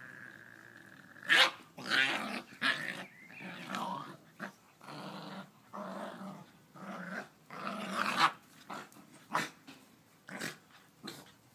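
Two Shiba Inus play-fighting, growling and snarling at each other in quick, irregular bursts, loudest about a second in and again near two-thirds of the way through.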